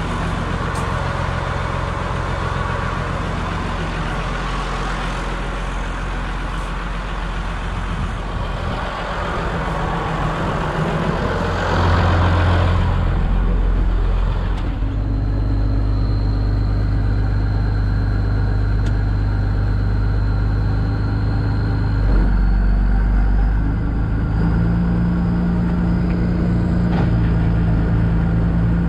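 Massey Ferguson 6180 tractor's straight-piped six-cylinder diesel engine running at low revs, heard first from outside the tractor and then, from about halfway, muffled inside the cab with a steady high whine. The engine speed rises a little near the end.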